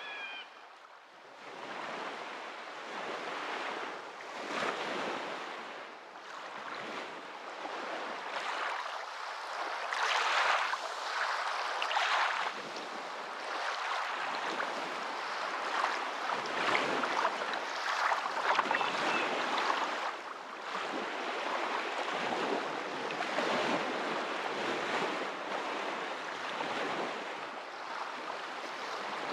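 Water running and splashing, swelling and easing every few seconds.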